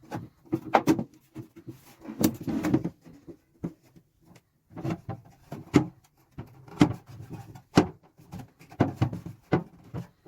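Metal Craftsman toolbox being handled: an irregular series of knocks, clicks and clunks, about a dozen, some bunched together, as its parts are moved and set down.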